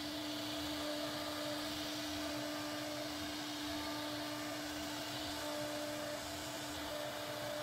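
CNC router spindle carving a relief pattern into a wooden panel: a steady whine with a constant hiss of cutting. A second, higher tone comes and goes several times.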